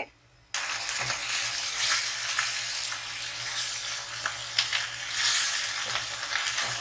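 Ginger-garlic paste and green chillies sizzling in hot oil among lightly browned onions, stirred round a non-stick pan with a spatula, with small scrapes and taps. The sizzle starts abruptly about half a second in.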